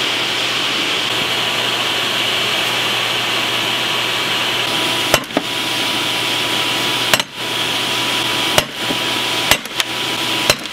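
A 4-pound sledgehammer striking a water-quenched steel test piece held in a bench vise: about six sharp blows, starting about halfway in and coming closer together near the end. It is a break test of the quench, and the piece shatters. A steady hiss runs underneath.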